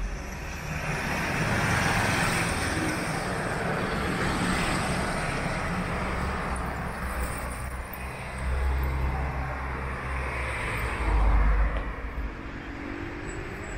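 Road traffic on a city street: vehicles passing, the noise swelling and fading as each goes by, with the loudest pass near the end.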